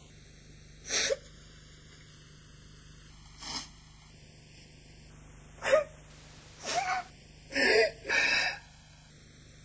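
A woman crying: short sobs and sniffles, about six of them with pauses in between, the later ones closer together.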